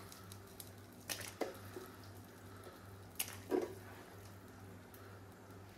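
Pieces of chicken splashing into a large stockpot of boiling stock: a few short wet plops and splashes, the loudest about three and a half seconds in, over a steady low hum.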